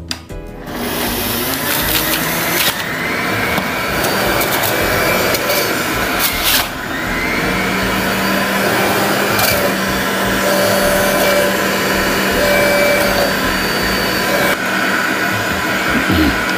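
Electric centrifugal juicer running, its motor whirring as Granny Smith apple pieces pushed down the feed chute are shredded by the spinning cutter, with a few sharp crunches as chunks hit the blade. It switches on just under a second in.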